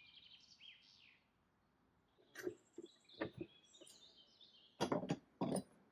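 Small birds chirping faintly in the background, with a few short knocks and clicks from handling the wooden chair parts, the loudest of them just under five seconds in.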